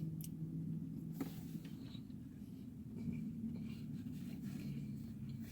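Faint scratchy rustling and a couple of light clicks, the loudest about a second in, over a steady low hum.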